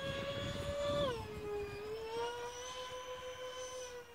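Motor of a radio-controlled Me 262 model jet whining steadily in flight overhead. About a second in, the pitch drops as the throttle comes back, then slowly climbs partway again.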